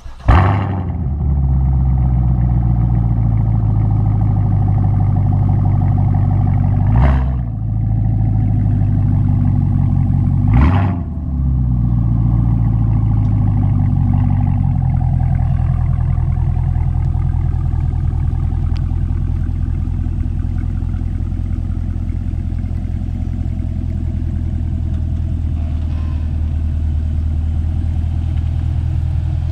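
Chevrolet Camaro SS 6.2-litre LT1 V8 through a Flowmaster Outlaw axle-back exhaust: it starts with a sudden loud flare just after the beginning and settles into a steady idle. It is given two short throttle blips, about seven and eleven seconds in.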